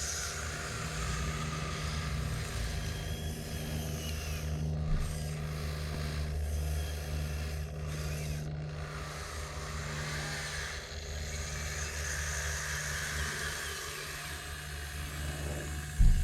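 Steady hum of a scale RC hydraulic excavator's pump, with scraping and rubbing sounds over it and a sharp knock near the end.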